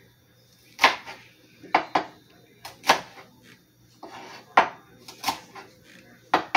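Kitchen knife chopping vegetables on a cutting board: sharp, irregularly spaced knocks about once a second.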